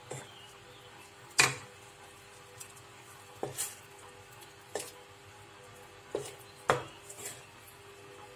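Wooden spatula knocking and scraping against a metal pan while stirring chicken in coconut cream. About seven separate knocks, the loudest about a second and a half in.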